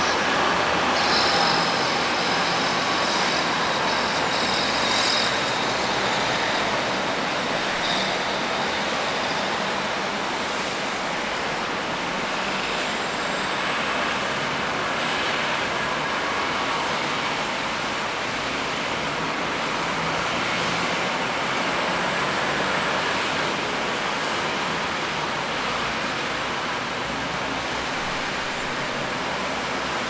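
Rain on a city street with motor traffic passing on the wet road: a steady, even hiss, with a high squeal for a few seconds near the start.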